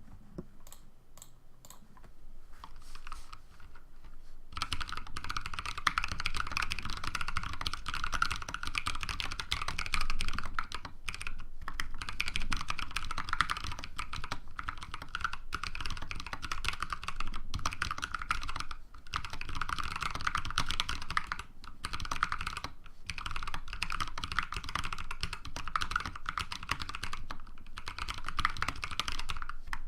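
Typing on a custom mechanical keyboard with lubed Outemu Ice V2 switches (dark purple stems, 68 g springs on the letter keys, Cherry MX red stems in Outemu Ice housings on the modifiers). A few separate key presses come first, then continuous fast typing starts about four and a half seconds in.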